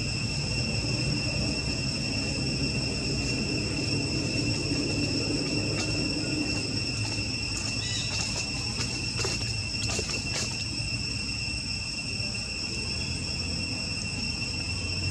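Steady, high-pitched insect chorus holding unchanging tones, over a low rumble, with a few faint clicks about six, nine and ten seconds in.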